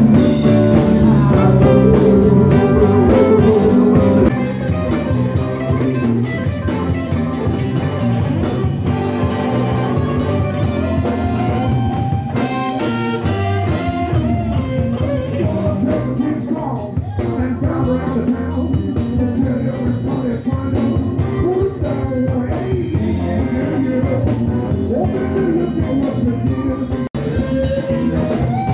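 Live blues band playing: electric guitars, drum kit, keyboard and trumpet, with singing. The level drops suddenly about four seconds in.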